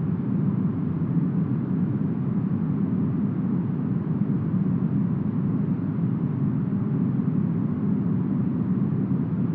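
Smoothed brown noise: a steady, deep rumbling hiss like low wind, with no gusts or breaks, its weight in the low range and little treble.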